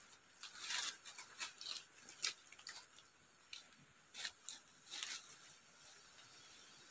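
Scattered light crackles and rustles of dry grass and leaves on the bank being disturbed, a dozen or so short ones in the first five seconds, then only a faint steady hiss.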